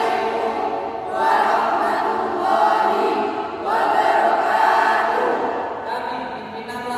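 Choir singing a march song in held phrases, each note sustained about a second before the next phrase starts.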